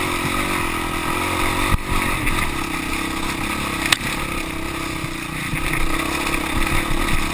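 Dirt bike engine running under steady throttle on a continuous uphill trail climb, its pitch wavering slightly. Two sharp knocks, about two and four seconds in.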